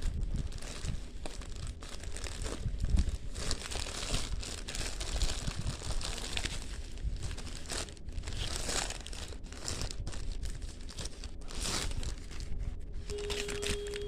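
Plastic courier package crinkling and tearing as it is handled and pulled open, in irregular rustling bursts.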